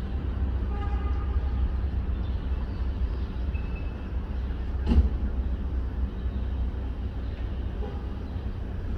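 City street ambience: a steady low rumble of passing traffic, with one sharp knock about five seconds in.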